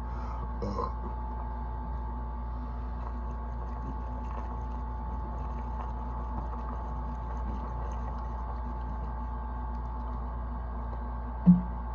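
Steady low background hum with nothing else clearly heard, broken by one brief low sound near the end.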